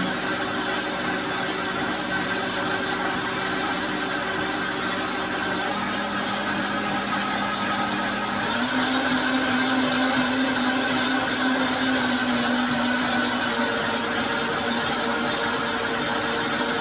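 Countertop blender motor running steadily, blending a thick green smoothie of greens, fruit and water. The motor's pitch dips slightly at the start and rises again about halfway through.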